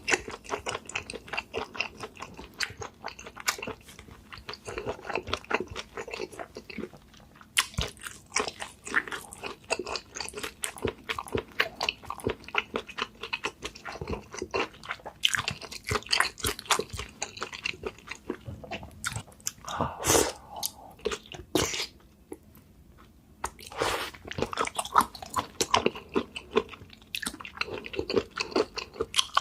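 Close-miked eating of spicy seafood: repeated biting and chewing with crunching, broken by a brief pause about three quarters of the way through.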